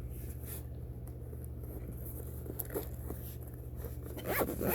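Packaging and plastic accessories being handled: scattered short rustles and scrapes, with a denser bout of louder rustling near the end, over a steady low hum.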